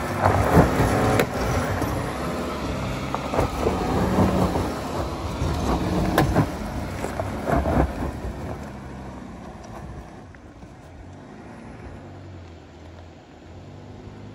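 Volkswagen Touareg's engine working hard as it climbs a steep rutted rocky track, with sharp knocks from tyres rolling over loose rocks. The sound fades from about two-thirds of the way through as the vehicle pulls away up the hill.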